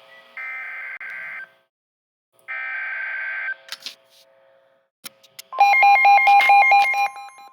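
Emergency Alert System SAME header: two roughly one-second bursts of buzzy digital data tones about a second apart. About five and a half seconds in, a steady alert tone starts, the NOAA Weather Radio 1050 Hz warning tone, with a rapid two-tone beeping over it.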